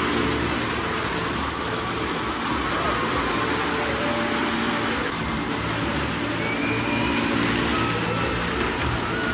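Engines of small stunt cars and a motorcycle driving round and round the wooden wall of a well-of-death drum, a steady unbroken din.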